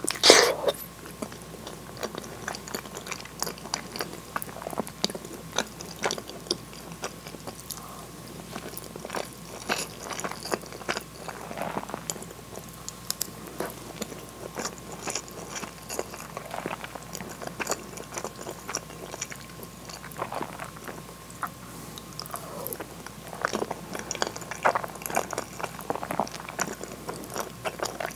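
Close-miked chewing of cheese-filled hamburg steak in sauce: wet mouth clicks and smacks at an uneven pace, with a loud bite just after the start.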